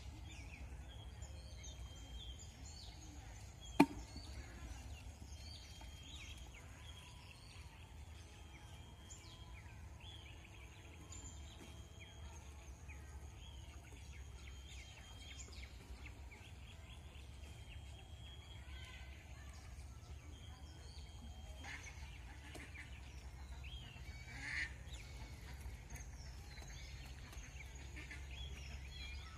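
Outdoor ambience of birds calling, many short high calls scattered throughout, over a steady low rumble. A single sharp click stands out about four seconds in.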